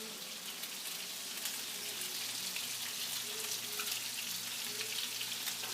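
Flour-dredged chicken pieces frying in olive oil and butter in a pan: a steady sizzle with fine crackling.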